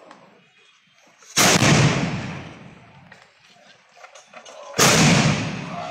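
Two ceremonial salute cannon blasts about three and a half seconds apart, each a sudden boom that rumbles and dies away over a second or so.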